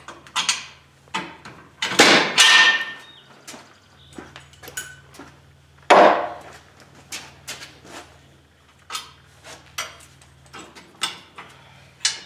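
Steel tractor three-point hitch parts and hand tools being handled: a run of clanks, clicks and knocks, with two louder metallic clangs about two and six seconds in, the first ringing briefly.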